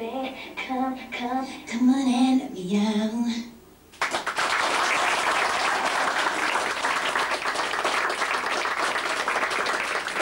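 A song with a woman singing comes to its end, and about four seconds in the audience breaks into steady applause that keeps going.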